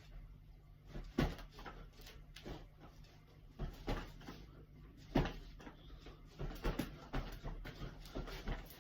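Boxing-gloved punches thudding into a pillow tied around a vacuum cleaner's handle, with shuffling and rustling between blows. The hits come irregularly, the hardest about a second in and about five seconds in.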